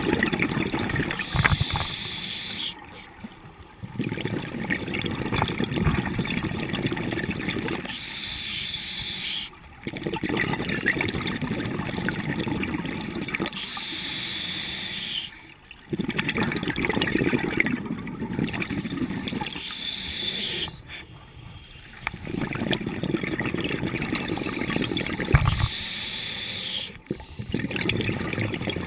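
Scuba diver breathing through a regulator underwater, heard through a camera's waterproof housing. Each breath is a short hissing inhalation followed by several seconds of bubbling exhalation, repeating about every six seconds.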